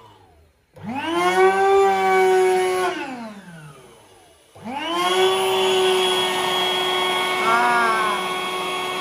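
Small electric air pump for an inflatable running in two bursts: each time the motor spins up to a steady whine, the first run winding down after about three seconds, the second starting about halfway and running on steadily.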